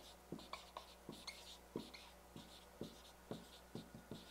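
Marker writing on a whiteboard: a string of short, faint strokes and taps as a word is written out letter by letter.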